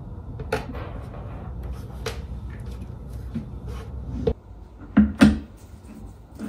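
Knocks and thumps of cat tree parts being handled and fitted together: a few scattered light knocks, then two louder thumps in quick succession near the end.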